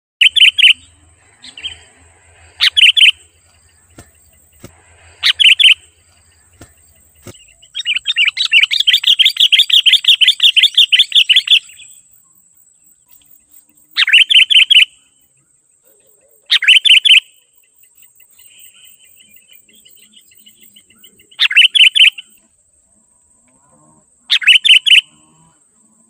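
Sooty-headed bulbul singing: loud, short bubbly phrases of under a second, repeated every few seconds, with a run of rapid chattering notes lasting about four seconds in the middle. A faint steady high whine runs underneath.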